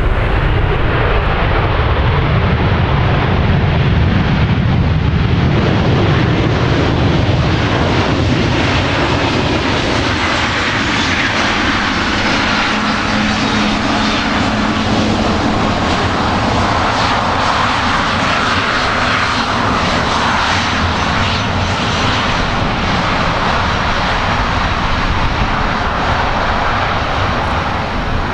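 Boeing 737-400's CFM56-3 turbofan engines running at taxi power as the jet rolls past and away, a steady jet whine over a rumble. The whine is strongest midway, as the plane passes closest.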